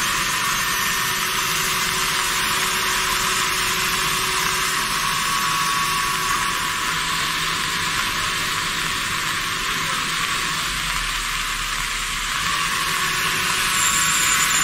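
Heavy rain falling as a steady, even hiss.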